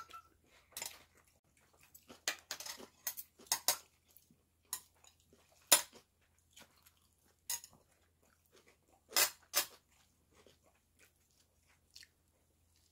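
Eating a square seaweed-wrapped gimbap by hand: scattered short crackles of the dried seaweed being handled and bitten, chewing, and light taps on a plate. The loudest crackles come about six seconds in and as a pair about nine seconds in.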